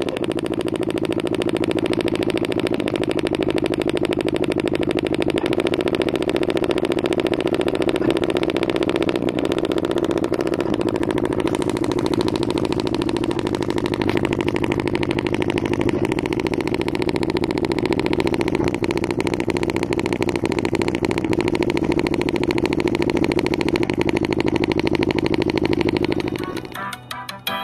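JBL portable Bluetooth speaker driven hard with a bass-heavy track, its passive radiators pushed to their limit. It gives a loud, dense, buzzing drone that changes a few times. About a second before the end it drops away to quieter music.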